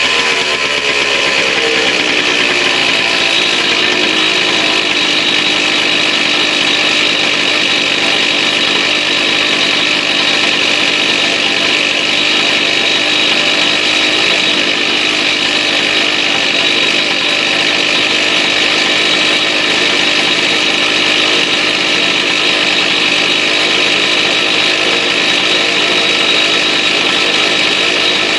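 Gas-powered concrete cut-off saw running at full speed, cutting concrete pavers. Its pitch rises over the first two seconds, then holds steady.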